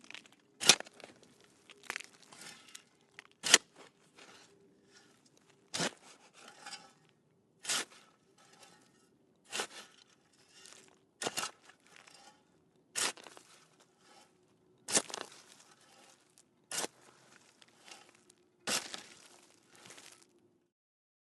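Metal shovel digging in dirt: the blade strikes into the ground about every two seconds, each stab followed by a short crunch and scrape of soil, about eleven strokes, stopping near the end.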